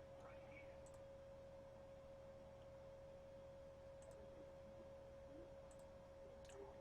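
Near silence: room tone with a faint steady electrical tone held at one pitch and a few faint clicks.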